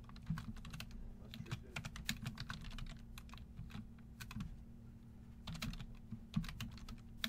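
Typing on a computer keyboard: runs of quick key clicks, a pause of about a second past the middle, then another short burst and a few more keys near the end, over a low steady hum.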